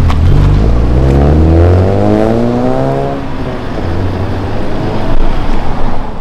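Honda Civic engine accelerating away, its note rising steadily for about two seconds before easing off to a lower, steadier hum.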